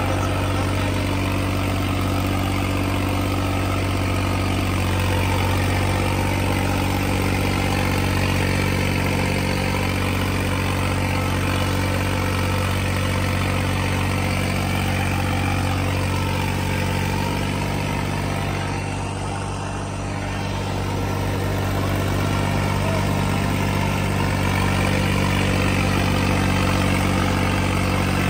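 New Holland 5620 tractor's diesel engine running steadily under load while pulling a super seeder, whose rotary blades churn through the soil. The sound eases briefly about two-thirds of the way through, then comes back up.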